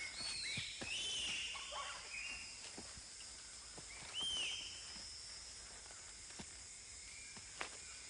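Bonobos giving short, high-pitched arching calls, several in the first two seconds and another about four seconds in, over a steady high insect buzz and scattered faint clicks.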